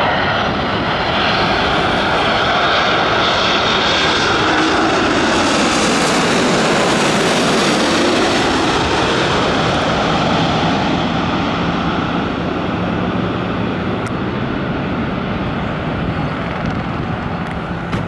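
Japan Airlines Boeing 787-8 Dreamliner's GEnx turbofans on landing approach, passing low overhead: the rushing jet noise swells to its loudest and brightest several seconds in, with a tone that falls in pitch as the aircraft goes by, then eases off as it flares away toward touchdown.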